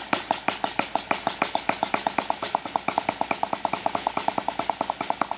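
Snare drum played with sticks: a fast, even stream of single strokes, about ten a second, with the hands alternating. It is a single stroke roll played with the open-close (two-motion) stroke technique.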